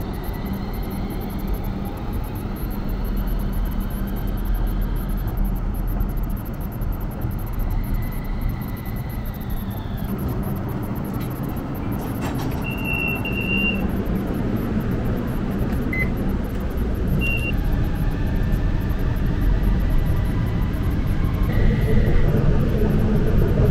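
Steady vehicle running noise with a low rumble, a faint whine that falls away about ten seconds in, and a few short high beeps in the middle.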